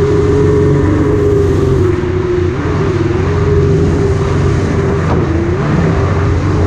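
Jet ski engine running steadily at speed, its tone dipping slightly twice, about two and a half and five seconds in, with a constant rush of noise underneath.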